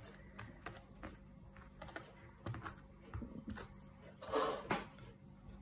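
Faint, scattered light taps and clicks of hands shaping soft cookie dough and setting the cookies down on a plate, with one short rustle about four and a half seconds in.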